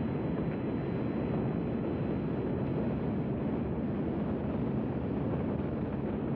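Saturn V's five F-1 first-stage engines firing as the rocket climbs after liftoff: a steady, low rumble with no let-up.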